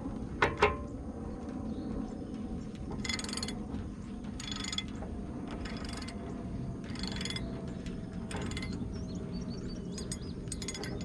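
Hand socket ratchet clicking in about six short bursts, a little over a second apart, as the nut on a rotary cutter's blade bolt is run down. Two sharp metal clinks come about half a second in.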